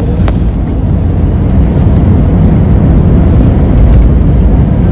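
Airbus A321 landing rollout heard inside the cabin: a loud, steady low rumble of the engines and the wheels running along the runway.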